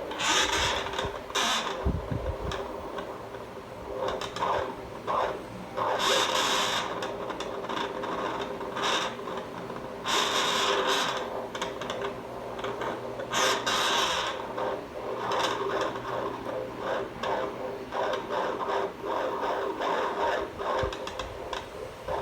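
A machine running with a steady hum, broken every few seconds by irregular bursts of scraping noise, a sign of something knocking or rubbing inside it.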